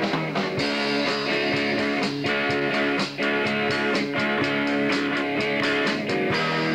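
Live rock band playing an instrumental passage: electric guitars ringing out over a drum kit keeping a steady beat.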